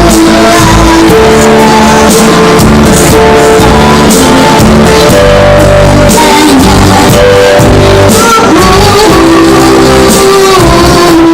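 A child solo singer sings a song with long held notes over loud amplified backing music.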